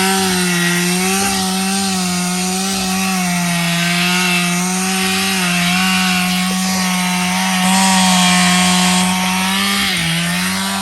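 Chainsaw running at high speed as it cuts through wood, its pitch wavering slightly under load, with a brief dip near the end.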